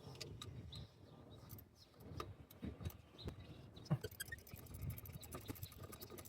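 Faint clicking of a small socket ratchet working on a starter mounting bolt, with scattered taps and a run of rapid ratchet clicks about four seconds in.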